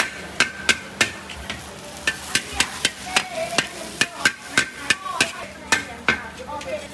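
Long metal spatula striking and scraping a large wok as noodles and bean sprouts are stir-fried over a gas flame: quick irregular clanks, about three or four a second, some with a short metallic ring.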